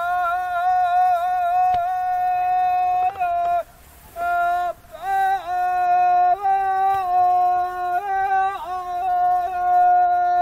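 One unaccompanied voice chanting a traditional Sri Lankan threshing song (kavi) in long, drawn-out, wavering notes, with a couple of short breaks for breath a few seconds in. It is the kind of chant sung to the buffalo as they tread out the paddy.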